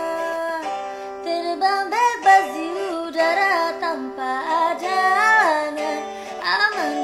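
A woman singing with instrumental backing, her voice sliding up and down between notes with no clear words.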